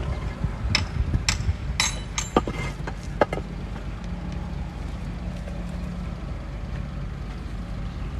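The diesel engine of heavy earthmoving machinery running steadily. In the first few seconds a run of sharp knocks and clatters is heard over it.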